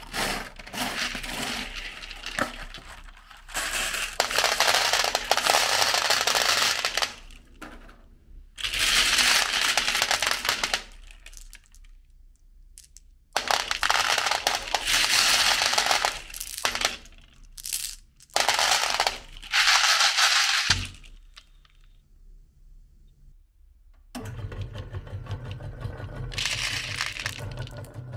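Glass marbles clattering and clinking as they are poured and rattled about, in four long bursts of many rapid clicks. About three-quarters of the way through, an electric meat grinder's motor starts and runs with a steady low hum.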